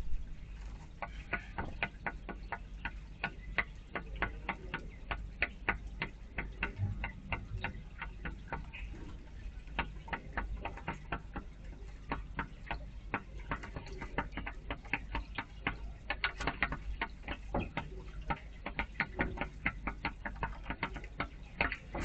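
Doves pecking seed from a plastic feeder tray: sharp, irregular clicking taps, several a second, in quick runs.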